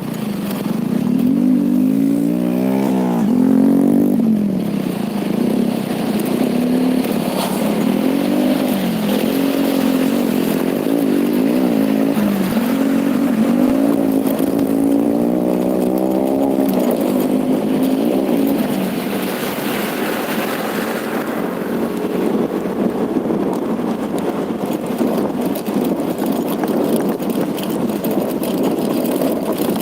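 Motorcycle engine running while ridden, its pitch climbing and dipping again and again as the throttle opens and closes. In the last third the steady engine note gives way to a rougher, noisier rush.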